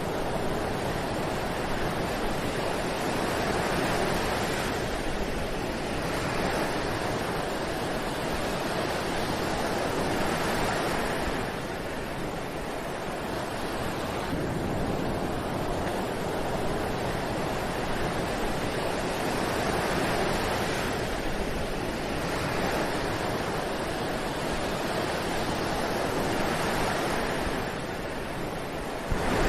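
Ocean surf washing onto a beach, a steady rush of water that swells and eases every few seconds as waves break. Just before the end it jumps suddenly louder.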